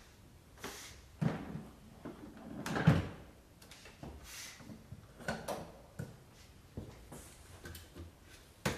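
Irregular handling sounds: short knocks, clicks and rustles of objects being moved and set down, the loudest a knock about three seconds in and a sharp click near the end. No motor is running.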